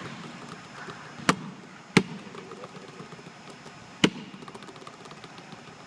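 A basketball striking a hard court three times in separate sharp smacks: two about a second in, close together, then one more two seconds later.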